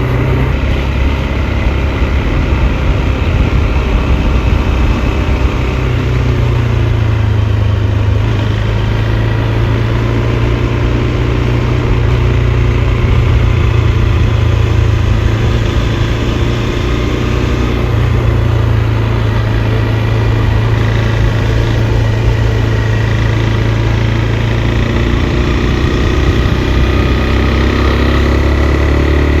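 KTM 390 Adventure's single-cylinder engine running under way at a steady, easy pace, its pitch rising and falling slightly as the revs change.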